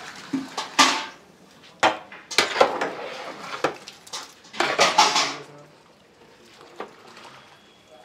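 A long-handled perforated metal ladle stirring and scraping a watery biryani masala in a large aluminium pot, knocking against the pot several times in the first five seconds, just after water is poured in from a steel vessel; quieter near the end.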